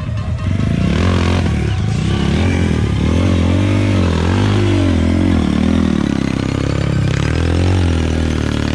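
Dirt bike engine revving up and down again and again as the throttle is worked in short bursts, climbing a steep, rocky trail.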